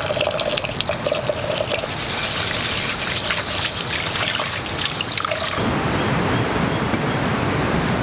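Thin stream of water trickling into an aluminium pot of rice while hands swish and rub the rice in it. A little past halfway this gives way to a steady, even hiss.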